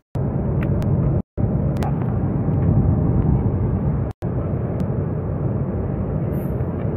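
Steady cabin noise of a jet airliner in cruise, the deep even roar of engines and airflow, picked up by a phone. The sound drops out for an instant three times, at the start, just over a second in and about four seconds in.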